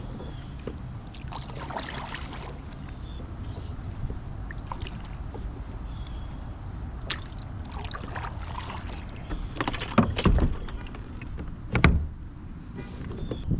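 Kayak being paddled: paddle strokes in the water and occasional knocks against the hull, the loudest about ten and twelve seconds in, over a steady low rumble.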